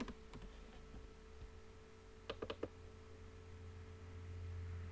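A few soft computer-keyboard key clicks in quick succession about two and a half seconds in, over a faint steady room hum with a low tone.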